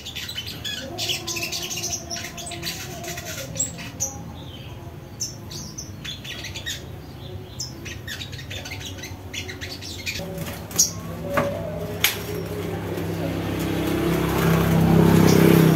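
A caged little spiderhunter (sogok ontong) hopping and fluttering about its cage: quick clicks and wing flutters, with short high chirps. A low rumble swells near the end.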